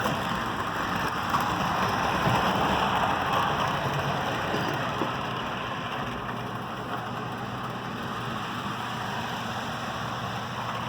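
HO-scale model train running along the track: a steady rumble of wheels on rail with the hum of the locomotive's motor, a little louder in the first half and then easing off.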